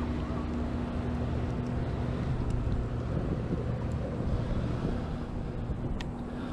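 Boat engine running with a steady low hum, with wind buffeting the microphone. The hum drops out for a few seconds midway and then comes back.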